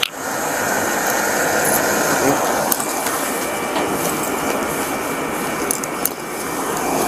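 Rustling and handling noise of gloved hands and uniform fabric rubbing close against a body-worn camera, with a few light clicks, over steady background noise.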